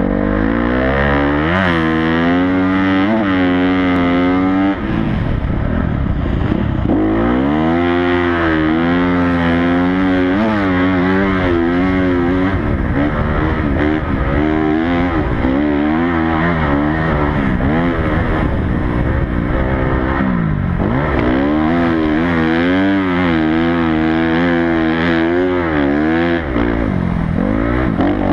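Honda CRF250 motocross bike's four-stroke single-cylinder engine under hard riding, its pitch repeatedly climbing as it revs up and falling back as the rider shifts or rolls off, heard from a helmet-mounted camera. The revs drop furthest around five seconds in, in the middle, and again near the end.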